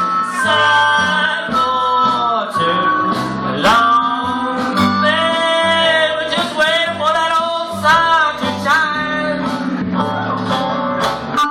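Live acoustic band music: strummed guitar and bass keeping time under a wavering melodic lead line.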